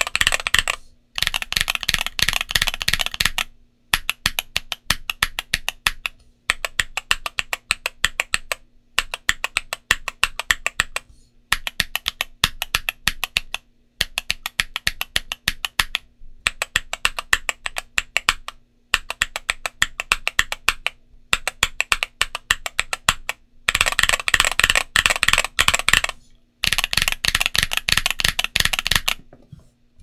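Typing on an Ajazz AC067 mechanical keyboard with MMD Princess Tactile 60g switches and XDA-profile PBT keycaps: fast runs of keystrokes, each two to three seconds long, with brief pauses between them. The last two runs are louder and brighter.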